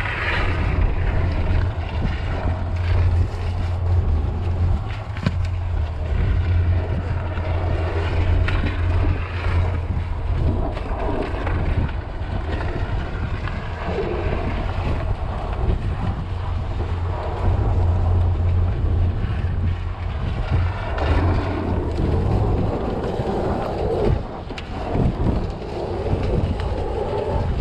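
Steady low vehicle drone mixed with wind buffeting the microphone, from a Jeep Grand Cherokee towing a skier through snow. The low drone weakens about 22 seconds in.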